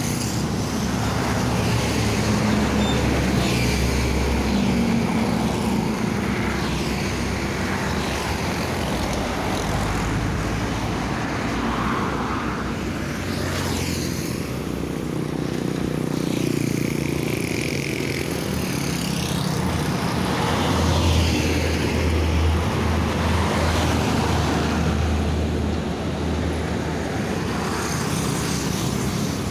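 Heavy road traffic: large vehicles passing one after another, a low engine drone under tyre and wind noise that swells and fades every few seconds.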